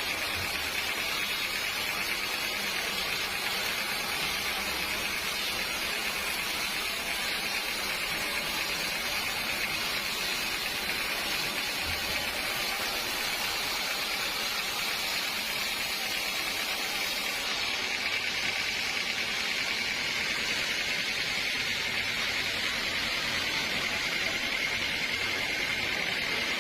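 Sawmill machinery running steadily: a constant hissing noise with a high, steady whine that grows a little stronger in the second half.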